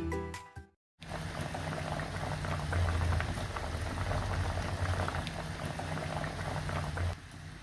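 Semur of beef tongue and tofu in a thick soy-sauce gravy simmering in a pot, bubbling steadily with many small pops; it drops away about seven seconds in. Before it, a music jingle ends in the first moment.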